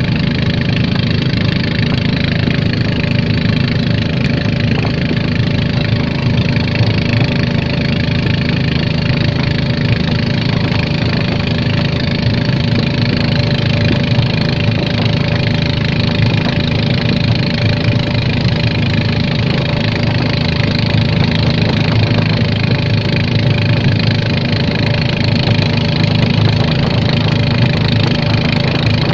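A boat's engine running steadily at constant speed, an even drone that does not change.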